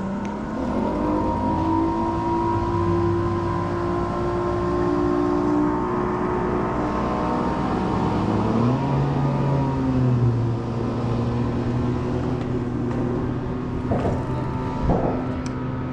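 Boat motor running steadily, its pitch swinging up and back down about nine seconds in, with a couple of short thumps near the end.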